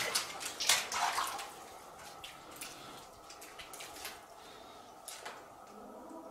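Irregular water splashes and drips in a cave, several close together and loudest in the first second and a half, then only scattered faint ticks.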